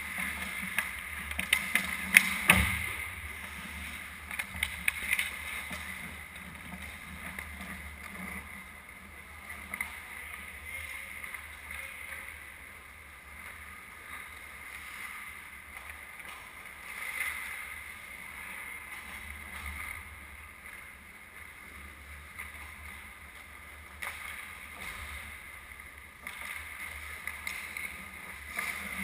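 Ice hockey rink sounds: skates scraping and gliding on the ice, with a quick run of sharp clacks about two seconds in and a few more scattered later.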